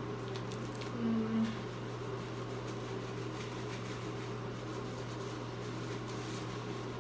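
Steady low hum in a small room, with faint soft rubbing of hands scrubbing shampoo into the hair at the roots.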